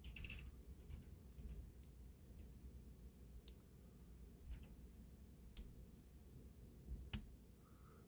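Lock pick and tension wrench working the pins of a small four-pin brass padlock: faint, sparse, sharp metallic clicks, about four distinct ones spread over several seconds, as pins are pushed and set.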